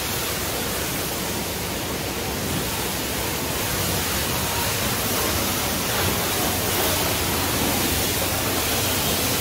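High-pressure water spraying at a car wash, a steady hiss.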